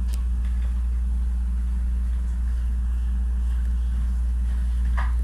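Electric train standing at a station platform, its onboard equipment giving a steady low hum, with a brief sharper sound near the end.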